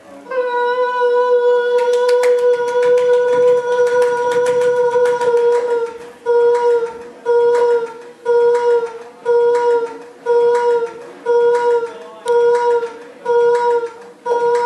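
A sung voice held on one steady note, transformed by granular synthesis and pitch shifting into a bright drone with a fast, fine crackle of grains. About six seconds in it turns into a repeating pulse of the same note, about once a second.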